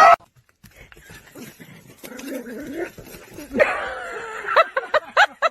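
A dog whimpering and yipping, ending in a quick run of short, high yips.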